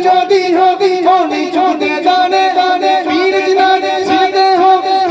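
Solo voice singing a naat, an Islamic devotional poem, in sustained melismatic phrases over a steady held tone.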